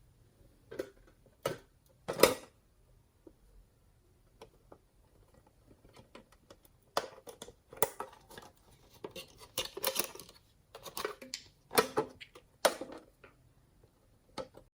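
Slime being worked by hand, giving irregular sticky pops and crackles: a few at first, coming thicker from about halfway through.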